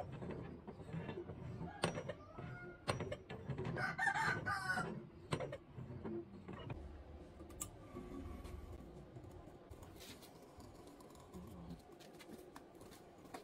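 A rooster crows once, about four seconds in. Scattered sharp metallic clinks and knocks come from the homemade steel bar-bending jig being handled on the steel workbench.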